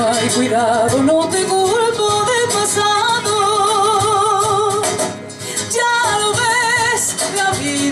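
A woman singing a Spanish ballad into a handheld microphone over instrumental accompaniment, amplified through PA speakers. She holds long notes with a wide vibrato, with a brief break about five seconds in.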